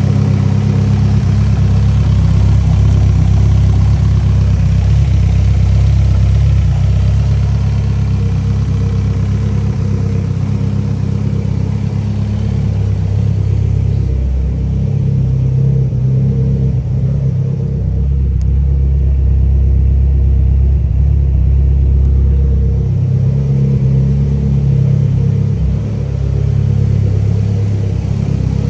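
Mitsubishi Lancer Evolution X turbocharged four-cylinder, fitted with a new ETS exhaust manifold and smaller-housing turbo, running steadily at idle. Its note wavers slightly a couple of times.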